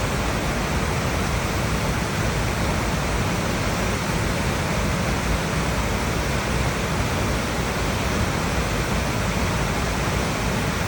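Sunset Falls, a large river waterfall on the South Fork Skykomish River, with its water rushing and pounding in a steady, unbroken roar that is full of deep rumble.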